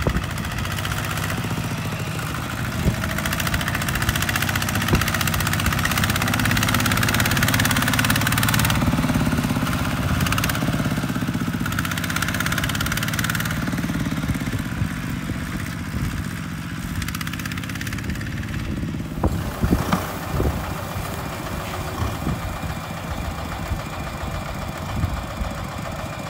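Single-cylinder diesel engine of a Kubota RT140 two-wheel walking tractor running steadily while it hauls a loaded trailer through a muddy field. It grows louder for a few seconds and then eases back. A few sharp knocks come in over the last part.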